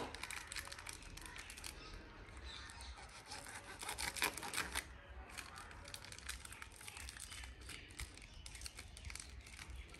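Hands working spice masala into raw chicken leg pieces: irregular rubbing and rustling with light clicks, a busier stretch about four seconds in, and a sharp knock right at the start.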